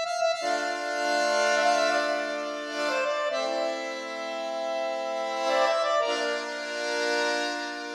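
Background music of slow, held chords that change every few seconds, with no beat, starting right at the beginning.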